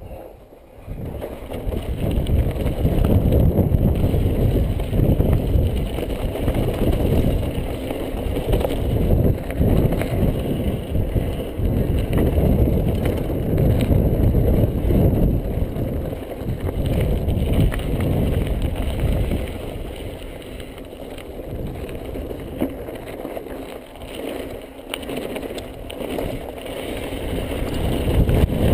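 Wind buffeting a chest-mounted action camera's microphone as a Yeti mountain bike rolls downhill over a rocky gravel trail, with tyre crunch and short knocks and rattles from the bike. It starts quieter and swells about a second in, then eases off for a while past the middle before building again near the end.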